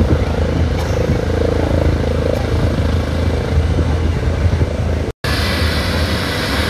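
Helicopter rotor and turbine noise, a steady loud rumble mixed with wind buffeting the microphone. It breaks off for an instant about five seconds in and comes back with more hiss.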